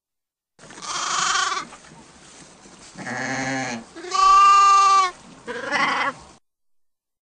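Sheep bleating: four calls in a row, the third the loudest and most clearly pitched.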